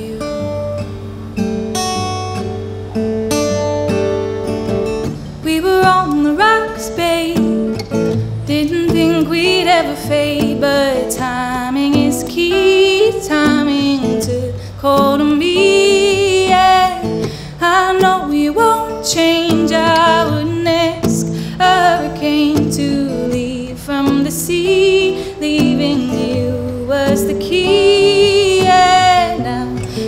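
A woman singing with her own acoustic guitar accompaniment, her held notes wavering with vibrato over sustained chords.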